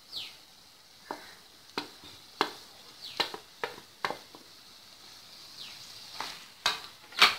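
Wooden spatula scraping cooked white rice off a banana leaf into a nonstick pan and stirring it into mint paste: about a dozen sharp scrapes and knocks against the pan, the loudest near the end. A faint sizzle from the pan runs underneath.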